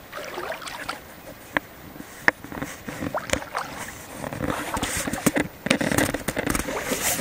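Canoe being paddled: water splashing and sloshing around the hull, with sharp knocks and scrapes against the canoe, getting busier and louder from about halfway through.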